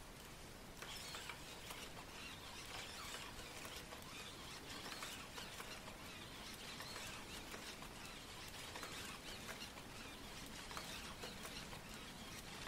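Sony AIBO ERS-7 robot dog moving on carpet: faint whir of its leg motors with light, quick pattering and scratchy ticks from its paws and joints, picking up about a second in.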